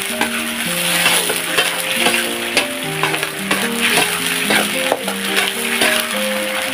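A metal spatula stirring and scraping a simmering, sizzling sauce in a steel wok, with many small scrapes and clicks. A melodic background music track plays under it.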